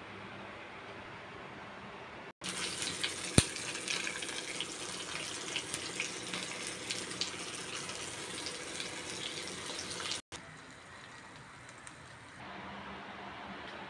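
Fish fillets sizzling and crackling in hot oil in a frying pan, full of small spattering ticks, with one sharp click about a second after the sizzle starts. The sizzle starts abruptly about two seconds in and cuts off abruptly about ten seconds in, leaving a steady low hiss.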